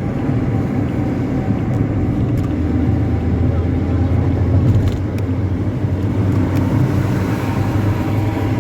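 Intercity bus running at speed with a 'ngorok' (snoring) modified exhaust: a steady, deep rumble mixed with road noise.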